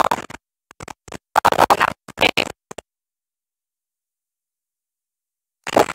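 A woman's voice through a BOYA BY-WM3T2-U2 wireless clip-on microphone sent from about 30 metres with her back turned. It comes in short broken phrases that cut in and out sharply, then goes to dead silence for about three seconds before the voice returns near the end.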